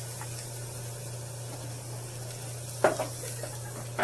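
Ribeye steak sizzling on a barbecue grill over smoking wood chips, a steady hiss, with a single sharp clank about three seconds in.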